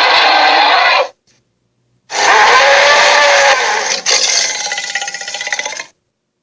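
Made-up dinosaur roars, sound effects for an Albertosaurus: one roar cuts off about a second in. A second starts about two seconds in, breaks into a rough, rattling growl and stops abruptly near the end.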